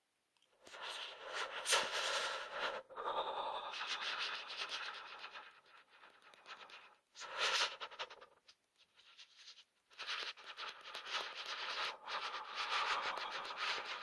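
A person shivering from the cold, performed as a sound effect: noisy, shaky sounds in bouts of a few seconds with short gaps between, the loudest a brief burst about seven and a half seconds in.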